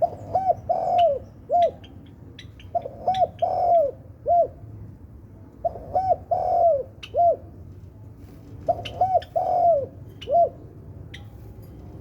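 Spotted dove cooing its song four times, each phrase a few quick coos ending in a longer one, repeated about every three seconds.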